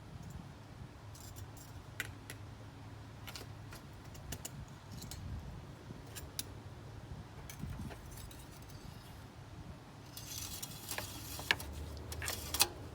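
Light metallic jingling with sharp clicks about ten seconds in, lasting a couple of seconds, over a faint low steady hum and a few scattered clicks.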